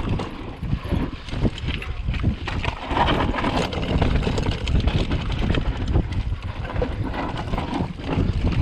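Downhill mountain bike riding fast over a dry, rocky dirt trail. The tyres crunch over dirt and stones, and the bike rattles and clatters in a continuous run of irregular knocks, over a low rumble of wind on the microphone.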